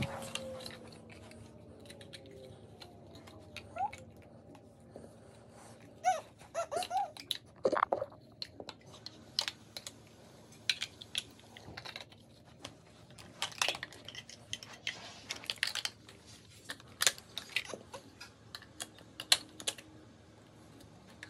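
Large plastic Mega Bloks building blocks clicking and clacking as toddlers handle them and press them together: scattered, irregular light clicks with gaps between.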